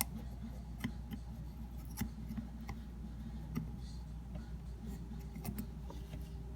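Scattered light clicks and taps, about six in all, over a steady low hum.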